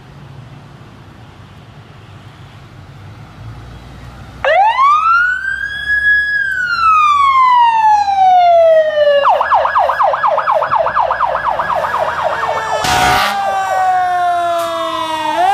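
Emergency-vehicle electronic sirens on a passing fire-department rescue ambulance and fire engine responding to a call. After a few seconds of faint street noise, one slow wail rises and falls, then changes into a rapid yelp of about four or five sweeps a second. Near the end comes a short loud blast, and a second siren starts rising.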